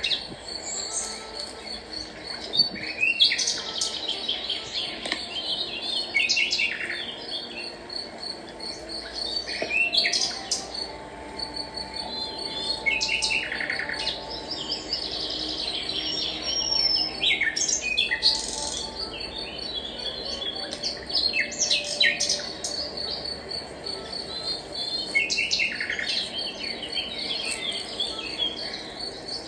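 Songbirds chirping and singing in short repeated phrases, over a steady, rapidly pulsing high trill.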